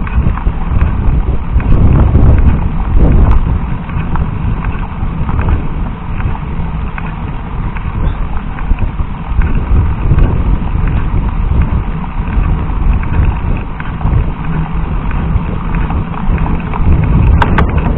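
Mountain bike riding up a rough dirt trail: a dense, steady rumble of tyres on loose gravel and the bike rattling over bumps, with many small clicks and knocks, picked up by a camera riding on the bike.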